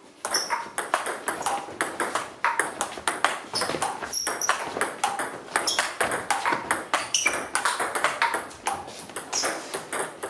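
Table tennis ball hit back and forth in a rally: sharp pocks as it strikes the bats and bounces on the table, several a second.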